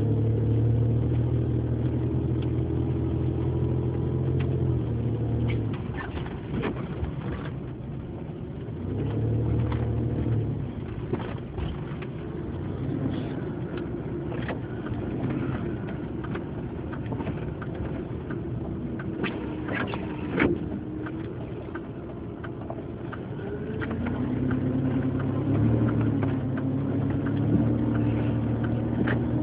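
A vehicle's engine heard from inside, pulling under throttle, easing off after about five seconds, pulling briefly again, then building once more near the end. In the quieter stretches there are scattered clicks and crackles.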